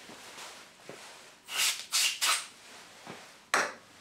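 Time-Sert seat cutter being turned by hand in a tap wrench, scraping into soft aluminium: three short grating squeaks in quick succession about a second and a half in, then a single sharper click about a second later.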